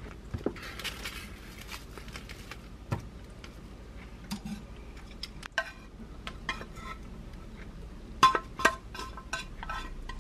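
A utensil clinking and scraping against a square egg-roll pan as stir-fried carrots are pushed out of it, scattered taps with a quick run of ringing clinks near the end.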